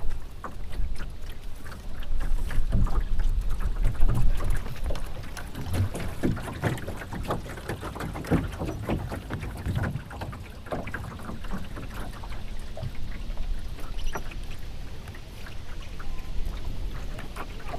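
Water splashing and lapping against the hull of a Melonseed skiff under sail, in many irregular small slaps, over a steady low rumble of wind on the microphone.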